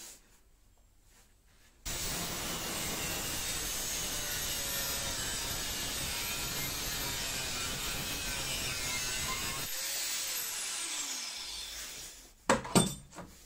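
Angle grinder with a thin disc cutting HSS saw-blade steel, starting suddenly about two seconds in and running steadily. About ten seconds in it is switched off and its pitch falls as the disc spins down. Two sharp knocks near the end are the loudest sounds.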